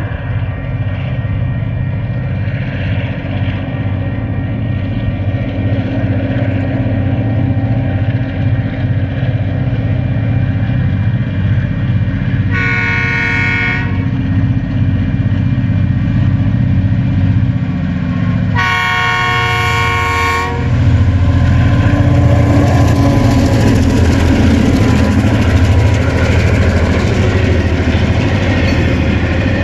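Four TasRail DQ-class diesel locomotives hauling a freight train, their engine drone growing louder as they approach and pass. The locomotive horn sounds twice, a short blast a little before halfway and a longer, louder one about two-thirds through. The engines are loudest near the end as the locomotives go by.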